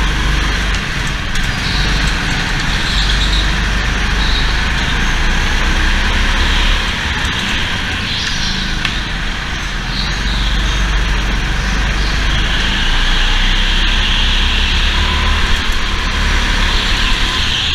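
Go-kart heard from on board at racing speed on an indoor track: a loud, steady rumble of engine, rolling and wind noise, with a wavering high sound that comes and goes and grows stronger in the second half.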